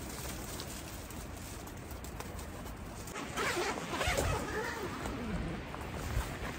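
Tent fabric and thin plastic sheeting rustling and crinkling as they are handled, with a zipper-like scratchy stretch about halfway through.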